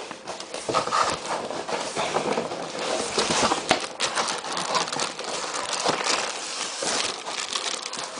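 A coffee machine's cardboard box and packing being handled and pulled at: continuous rustling and scraping with irregular knocks and clicks.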